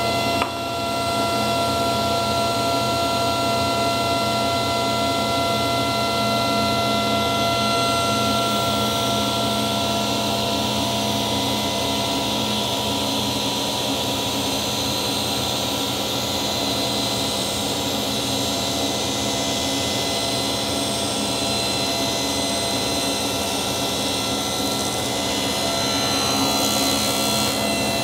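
Table saw and dust collector running together, a steady whine over an even rush of air, while an oak board is fed through the blade with the blade buried in the wood. A short click about half a second in.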